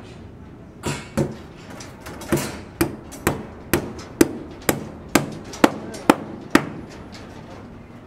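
Hand hammer blows on a building-site formwork and rebar frame: a few uneven strikes, then a steady run of about two blows a second that stops a little over a second before the end.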